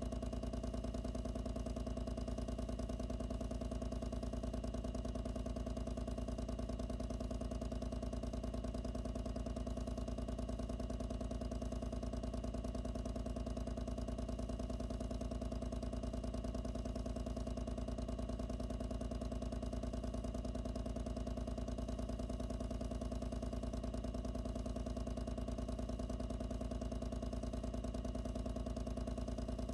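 Loud water pump running steadily, close-miked inside the box that holds it: a constant, unchanging hum with a deep low tone and a few fixed higher tones.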